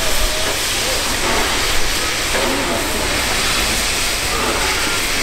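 Steady hiss of escaping steam from Victorian Railways R class steam locomotives moving slowly, with steam venting from the open cylinder drain cocks.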